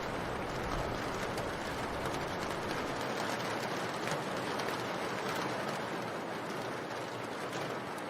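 Steady rain, an even hiss with faint scattered drop ticks. A low rumble underneath fades out about three seconds in.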